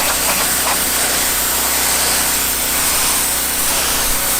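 Sioux H3.5D3000-G engine-driven pressure washer spraying a steady high-pressure jet at 3,000 PSI. The loud, even hiss of the spray sits over the low, steady drone of the running engine.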